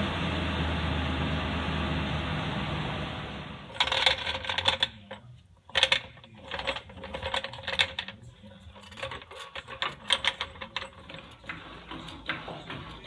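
The 2002 Ford Explorer Sport Trac's 4.0 L V6 runs steadily, then cuts off about three and a half seconds in. After that come irregular metallic clicks and clinks from a steel floor jack being worked under the truck.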